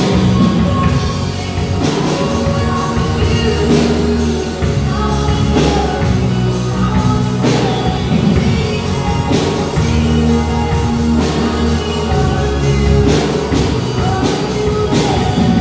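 Live worship band playing a song: drum kit beating a steady rhythm under electric guitars and keyboard, with a sung lead vocal.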